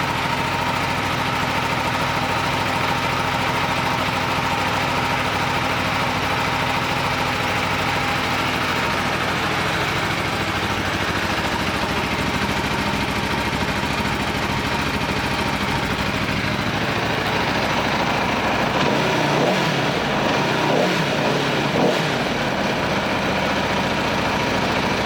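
Aprilia Tuono V4 1100RR's 1077 cc V4 engine idling steadily, its note wavering up and down a few times in the last several seconds.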